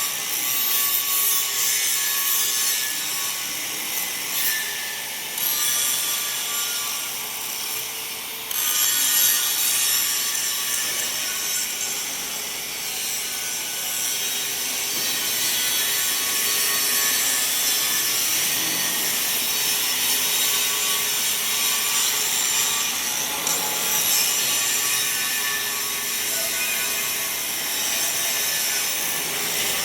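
Angle grinder grinding the surface of a metal pipe to finish it: a continuous high, hissing grind with a steady whine beneath it, easing briefly about eight seconds in.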